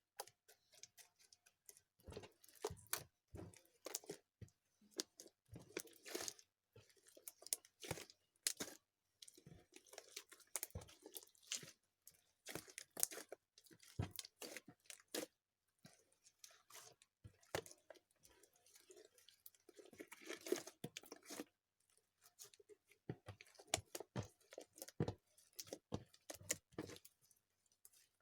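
Slime being squeezed, poked and stretched by hand, making irregular sticky clicks, pops and crackles with short pauses.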